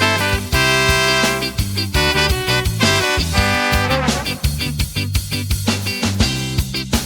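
Instrumental break of an upbeat swing-ska song: held brass-like chords over a steady drum beat, with no singing.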